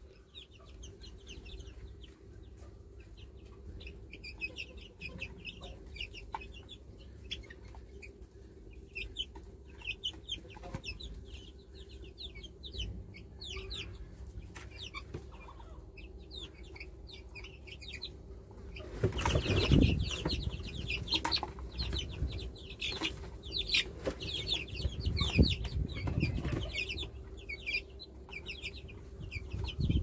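Young Harati chickens cheeping and clucking as they peck at a plate of greens. Their calls are many, short and high, and they grow louder and busier about two-thirds of the way in, along with a few low thumps.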